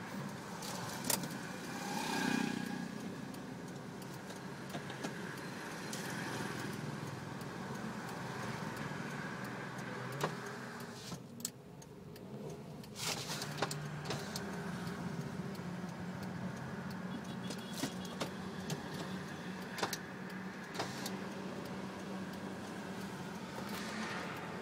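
Toyota Rush engine running through an aftermarket turbo whistler exhaust tip, mostly steady, with a brief swell about two seconds in and scattered light clicks.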